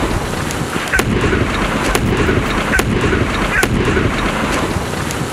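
Aftermath of an explosion that has blown up a caravan: the fireball burning with a dense, loud rushing noise and a deep rumble, broken by sharp cracks and pops about a second in and again near three and four seconds.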